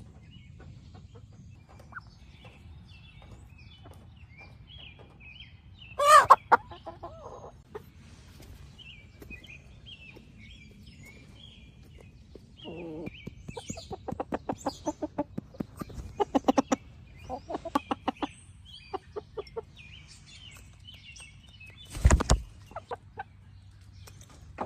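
Young backyard chickens clucking and chattering, with faint high chirps throughout. A loud squawk comes about six seconds in, and a run of quick clucks fills the middle. Near the end there is one loud thump.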